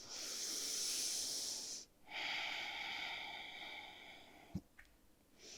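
A woman breathing deeply and audibly: two long breaths of about two seconds each, the second fading away, then a small click near the end as the next breath begins.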